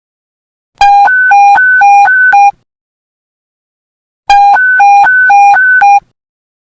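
Police panic-button alert tone: two loud bursts of rapidly alternating low and high beeps, each about a second and a half long, a couple of seconds apart.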